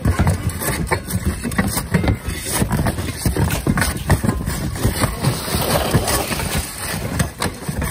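Roofing tear-off shovels prying and scraping old asphalt shingles and nails off a roof, with many irregular knocks and scrapes from several workers.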